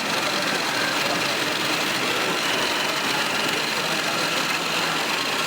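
Radio-controlled scale construction machines running: a steady mechanical whir with faint high whining tones.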